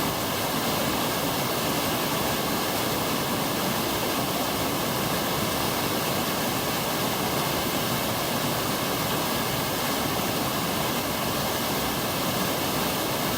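Waterfall pouring in a mountain gorge stream: a steady, even rush of water that does not change.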